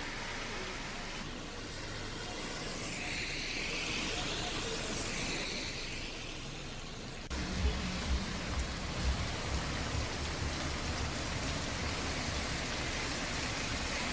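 Heavy rain hissing steadily, with cars driving along a flooded, wet road. About seven seconds in the sound changes and a lower, uneven rumble joins the rain.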